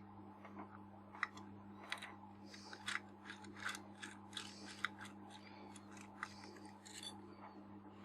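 Irregular small clicks, taps and scraping from hands and tools working the parts of a disassembled Nikon 50mm f/1.4 lens while its front group and focus ring are adjusted for infinity focus, over a steady low hum.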